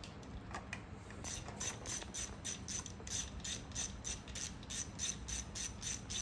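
Hand ratchet clicking steadily as it runs a lifter-guide tray bolt down into an LS1 engine block, at about four clicks a second from about a second in.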